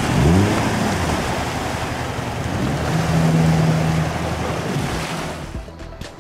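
Jet boat's outboard motor running at speed on a river, amid a steady rush of water and wind. The engine's pitch rises near the start and it holds a steady note midway. The whole sound dies away near the end.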